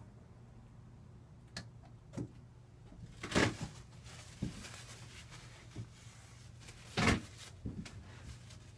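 A few scattered knocks and bumps, two louder clunks about three and a half and seven seconds in, over a steady low hum.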